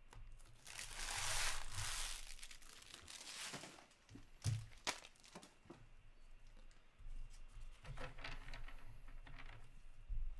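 Hockey trading-card pack wrapper being torn open and crinkled, a long rustle early on and more crinkling later, with two sharp taps in between.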